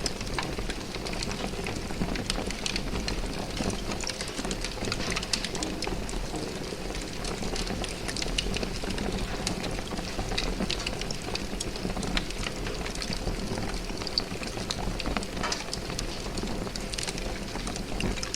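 Large fire burning: a steady low rumble of flames with frequent sharp crackles and pops.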